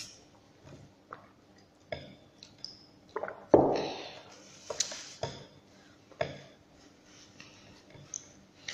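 Scattered light clinks and knocks of a drinking glass and tableware being handled at a table. The loudest is one sharp knock about three and a half seconds in.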